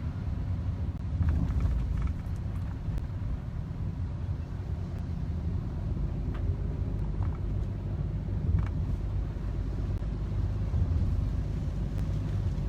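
Road noise inside a moving car: a steady low rumble of engine and tyres, with a few faint ticks.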